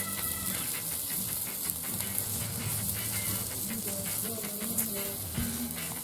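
Steady hiss of food sizzling on an outdoor grill, with faint wavering low tones underneath.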